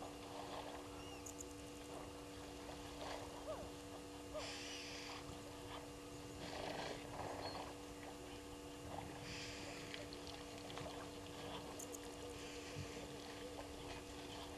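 Elephants drinking at a waterhole: intermittent splashing and sloshing of water, over a steady low hum.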